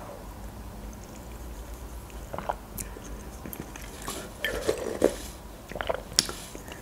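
Close-up mouth sounds of eating borscht from a spoon: soft chewing and sipping, with scattered short wet clicks that come mostly in the second half.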